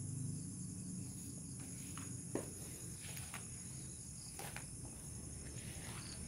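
Steady high-pitched chirring of an insect chorus, like crickets, with a low rumble beneath and a few light clicks and taps, the sharpest a small knock about two seconds in.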